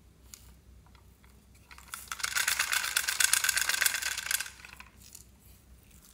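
Small pink flakes rattling inside a hollow plastic pig-shaped toy as it is shaken to pour them out: a fast, dense rattle starting about two seconds in and lasting about two and a half seconds.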